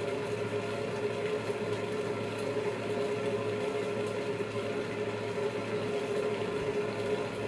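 A steady mechanical hum holding one constant tone, with a lower hum beneath it.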